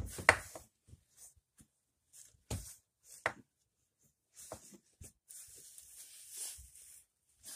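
Workbench handling noises: a sharp knock just after the start, two more knocks a few seconds later, scattered small clicks, and a short rustle near the end. No grinder is running.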